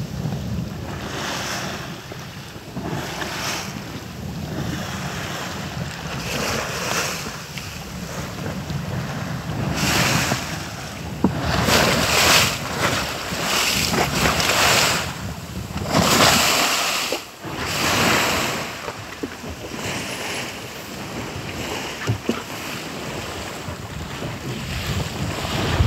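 Seawater rushing and splashing along the hull of a wooden sailing jangada moving fast through choppy sea, in irregular surges every second or two, with wind buffeting the microphone. The surges are loudest through the middle stretch.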